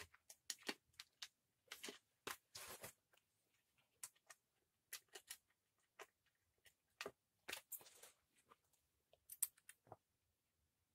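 Faint scattered clicks, taps and short scrapes of plastic parts being handled: the fuel tank of a petrol brushcutter being fitted back onto its engine.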